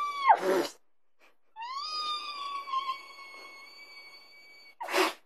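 Cat yowling: a short high call, then one long steady call held for about three seconds, which the owner takes as a sign she is in heat. A short breathy rush near the end.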